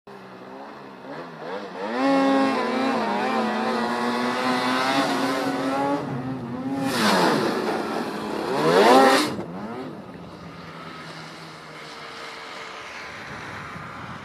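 Arctic Cat snowmobile engine under hard throttle, its pitch climbing as the sled speeds toward the jump and holding high. At its loudest it passes close, the pitch dropping and then sweeping up sharply as the engine revs while the sled is airborne, then falls back to a quieter, steady drone after the landing.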